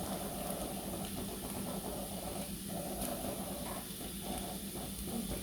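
Okra frying in a pan, a steady hiss of sizzling.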